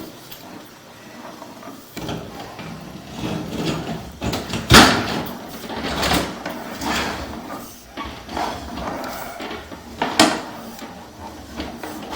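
Irregular knocks and clatter of hard objects being handled, with a sharp knock about five seconds in and another about ten seconds in.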